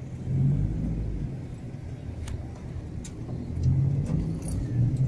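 Motor vehicle engines and road noise: a steady low rumble that grows louder about four seconds in.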